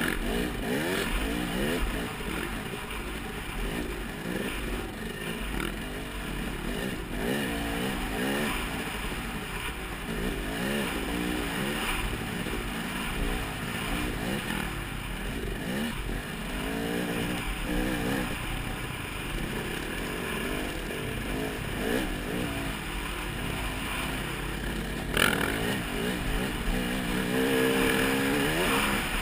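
Off-road motorcycle engine being ridden hard, its revs rising and falling over and over as the throttle is worked and gears change. A single sharp knock comes late on.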